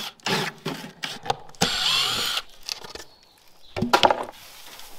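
Cordless drill running in several short bursts, backing screws out of the wooden nesting boxes being removed from a chicken tractor; the longest burst comes about a second and a half in. A louder knock of wood sounds near the end.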